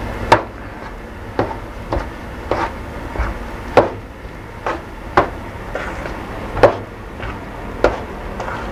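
Hands mixing and kneading pempek dough of fish and tapioca flour in a stainless steel bowl, knocking and tapping against the bowl about once a second at an irregular pace. A low steady hum runs underneath.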